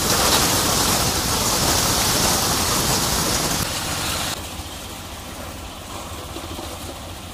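Soybean thresher running with its single-cylinder diesel engine, a loud steady rush and rattle as dry soybean plants are fed in by hand and threshed. About four seconds in, the sound drops suddenly to a quieter, steady machine noise.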